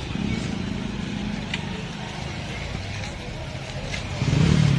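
Busy street market ambience: a low rumble of traffic under people talking nearby. A voice gets louder about four seconds in.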